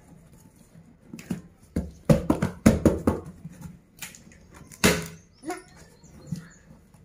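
Hands handling a cardboard carton: a run of short knocks and rustles on the cardboard, with one sharper, louder knock about five seconds in.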